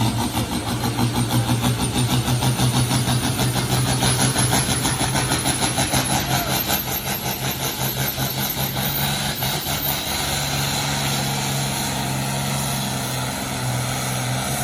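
Farm tractor engine working hard under full load as it pulls a weight-transfer sled down the track. A fast pulsing beat runs through it for about the first ten seconds, then the sound evens out.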